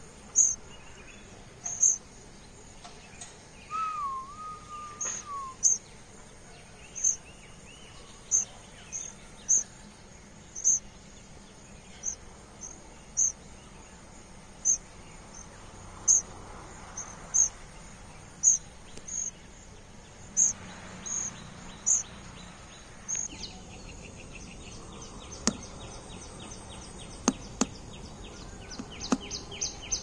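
Magpie nestlings giving short, high-pitched begging peeps, one at a time about once a second. A single wavering whistled note comes about four seconds in, and near the end the peeps give way to a rapid, fast-ticking buzz.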